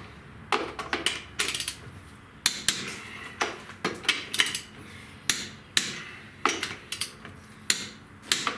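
Click-type torque wrench and socket on wheel lug nuts: a series of sharp metal clicks and clinks, about one or two a second, as the nuts are brought to 80 foot-pounds in turn.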